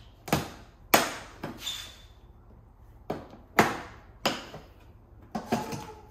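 Plastic trim piece on a Range Rover L405 rear bumper being pried at with a trim panel tool: about nine sharp, uneven clicks and snaps as its retaining clips are worked loose.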